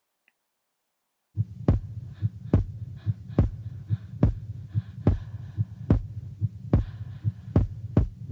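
Soundtrack beat: a low, regular thud a little more than once a second, like a heartbeat, over a steady low hum, beginning about a second and a half in.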